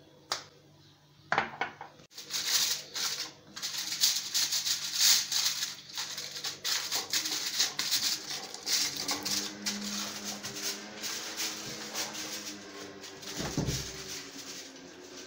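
Aluminium foil crinkling and crackling as it is pressed and folded around a plate, a dense run of rustles lasting most of the time. Near the end comes a dull low thud as a refrigerator door is pulled open.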